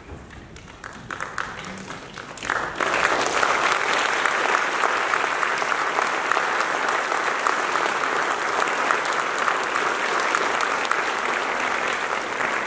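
Audience applauding: a few scattered claps at first, swelling into full, steady applause about two and a half seconds in.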